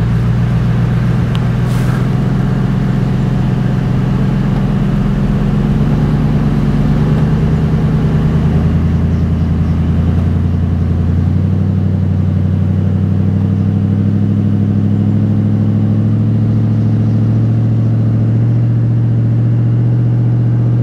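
A four-wheel drive's engine running steadily under heavy load as the vehicle strains against a tow strap in sand, with the note shifting about halfway through.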